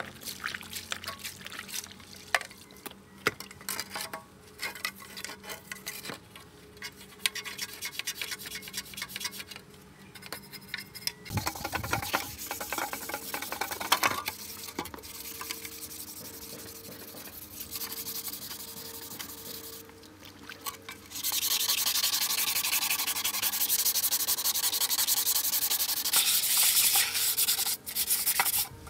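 An engine part being sanded or scrubbed: irregular scraping and small clicks at first, then a steadier, louder stretch of sanding from about two-thirds of the way in.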